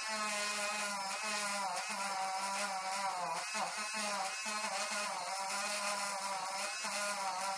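Helix battery-powered electric eraser whirring steadily as its spinning tip is pressed into airbrushed paint on a canvas, rubbing the paint off to texture the skin. Its pitch wavers slightly as the pressure on the tip changes.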